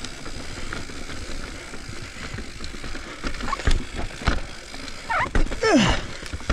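Commencal full-suspension mountain bike rattling over a wooden trail structure, with scattered knocks. About five seconds in there is a short squeal that falls in pitch.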